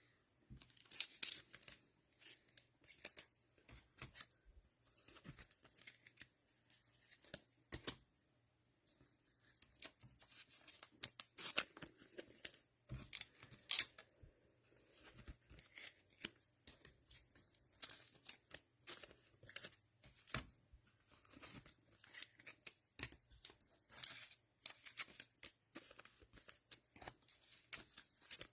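Faint handling of trading cards and plastic wrappers: scattered short rustles, crinkles and small tearing sounds, coming on and off.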